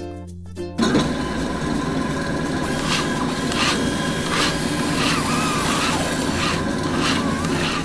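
A small machine running steadily, with a faint tick repeating about every three-quarters of a second; it starts abruptly about a second in as the music cuts off.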